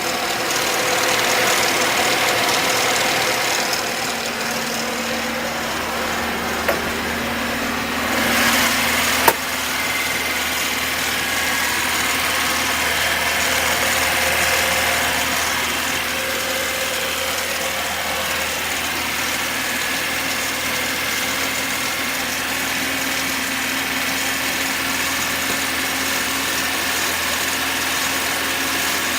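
Cold VAZ engine idling with a knock in it, coming from the front of the engine; the owner thinks it could be a valve, since it seems to fade when warm, or else the oil-pump drive's bearing. A sharp click about nine seconds in.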